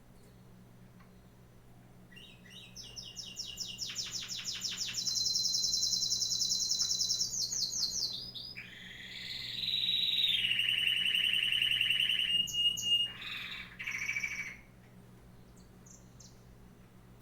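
A songbird singing one long song of rapid trills: a fast high trill that swells, then a lower fast trill, ending in a few short harsh notes about fourteen seconds in.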